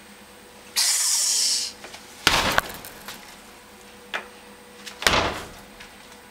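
A spitting cobra hissing once: a short, breathy hiss of about a second. Two dull knocks follow, a few seconds apart.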